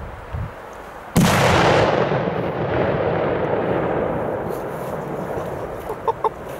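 A Horror 6 flash-powder firecracker goes off with a single sharp, loud bang about a second in. Its echo fades slowly over about four seconds.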